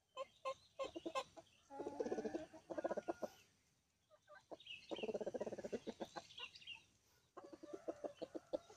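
Chickens clucking in several short bouts of quick, repeated calls, with a pause about halfway through.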